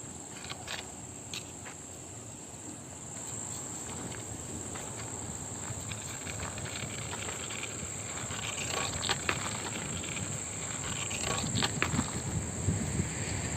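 Insects droning with one steady high-pitched note, with a few scattered clicks and low wind rumble on the microphone building near the end.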